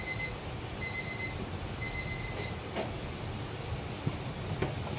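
Timer alarm going off, short electronic beeps about once a second, signalling that the 15-minute steaming time is up; the beeping stops about two and a half seconds in. A low steady rumble runs underneath.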